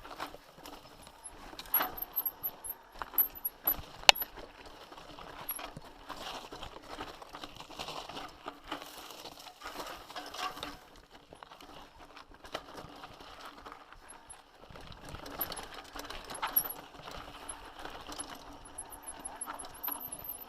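Mountain bike rattling and clicking as it is ridden or pushed over a rough, rocky trail, with irregular metallic jangles and sharp knocks, the loudest about four seconds in.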